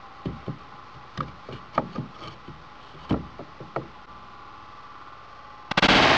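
About ten irregular knocks and taps as a fiberglass ballistic panel is handled and set down on a wooden stand. Near the end, loud music cuts in abruptly.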